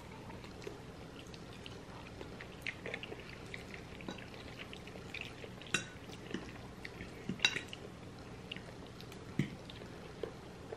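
Quiet eating sounds: forks clinking and scraping on plates as pasta is forked up, with small wet chewing and mouth clicks between them. A couple of sharper clinks stand out about halfway through.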